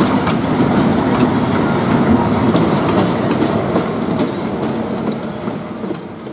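Diesel-hauled passenger train passing over a level crossing, its wheels clattering over the rails with scattered sharp clicks. The train gradually grows quieter.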